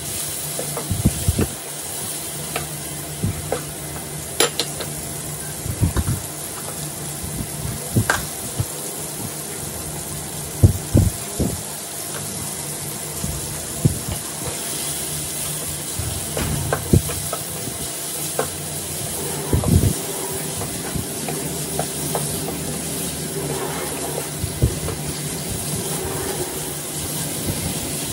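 Chicken pieces sizzling in oil in a nonstick frying pan, a steady frying hiss, with the nylon spatula scraping and knocking against the pan at irregular intervals as the meat is stirred.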